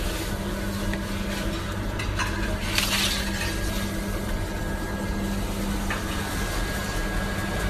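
Bakery work noise at a stone baking oven: a steady machine hum with light kitchen clatter, and a short, loud scraping hiss about three seconds in.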